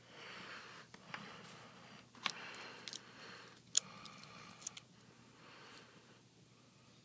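Faint handling noise from working on a tablet's parts: soft rustling with a handful of sharp, light clicks and taps, the loudest a little under four seconds in, then quieter toward the end.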